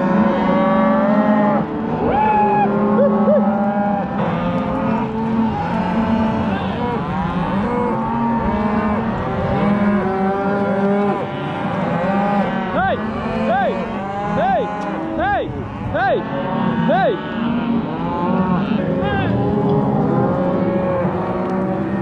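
A herd of cows and calves mooing constantly, many calls overlapping one another, with a run of short, higher calls in the middle.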